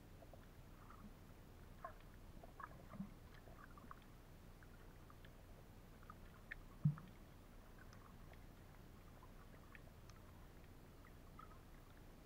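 Near-silent underwater ambience, heard through the camera underwater. Faint scattered small clicks and ticks come and go, with one short low thump about seven seconds in.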